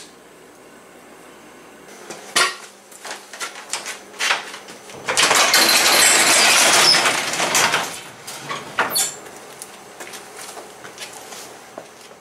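A sectional garage door being raised by hand, giving a loud, rolling metal rattle for about three seconds. It is preceded by a run of clicks and knocks.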